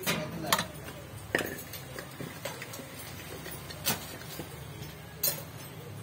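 About five sharp, separate clicks and knocks of plastic and metal parts being handled as the white plastic coupling is worked off the splined transmission shaft of a Haceb top-load washing machine.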